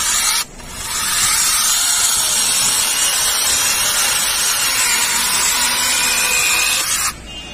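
Cordless mini chainsaw with a brushless motor cutting through a round wooden log, the chain running steadily in the wood. The saw stops briefly less than half a second in, runs up again, and stops about seven seconds in.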